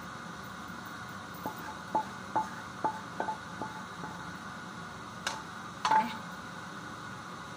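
Wooden spatula tapping and scraping against a metal frying pan as food is emptied into a glass bowl. About six light taps, each with a short metallic ring, are followed by two louder knocks near the end.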